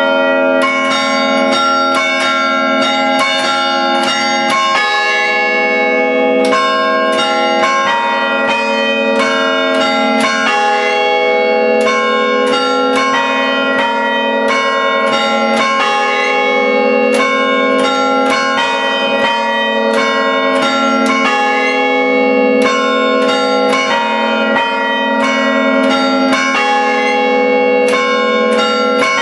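A set of five church-tower bells rung by hand through rope pulls, playing a traditional carillon peal: a quick, steady succession of strikes, several every second, each bell ringing on and overlapping the next.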